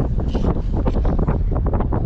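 Strong wind buffeting the microphone in gusts, a dense low rumble.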